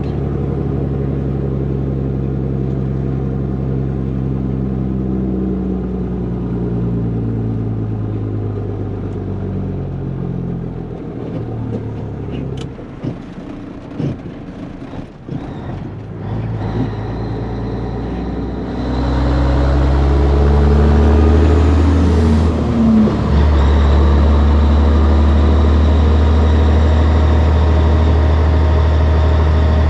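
Caterpillar diesel of a 1984 Peterbilt 362 cabover running through straight stacks. Over the first third its pitch falls in steps; then there is a short stretch of weaker, uneven sound. From about two-thirds in it runs louder and steady as the truck pulls.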